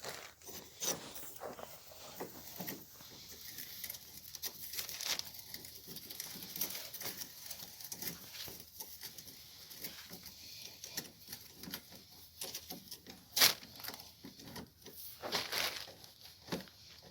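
Hand tools undoing a scooter's engine-mount bolt: irregular metallic clicks and scrapes, with one sharp knock about 13 seconds in and a short rasping scrape a couple of seconds later.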